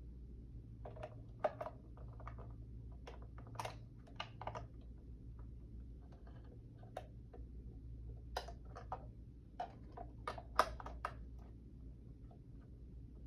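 Irregular plastic clicks and knocks from handling an analog alarm clock while fitting a C battery into its battery compartment, over a faint steady low hum.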